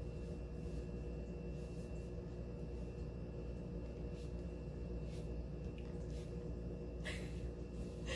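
Steady low room hum with no speech, broken by a few faint soft clicks, the clearest about seven seconds in.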